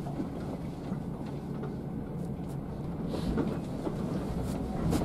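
Scania K360 coach running slowly over a broken, rough road, heard inside the cabin: a steady low engine drone with scattered clicks and rattles from the body as it rides the uneven surface, growing a little louder near the end.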